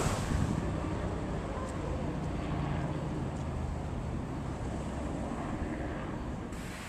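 Wind buffeting the microphone, with a steady low rumble and a faint hum underneath.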